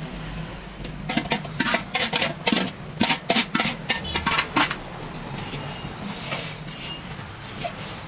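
Hot liquid poured into roasted gram-flour mixture in a large steel kadai, spluttering with a dense run of sharp crackles and pops for a few seconds, then settling into a fainter steady sizzle as the mixture froths.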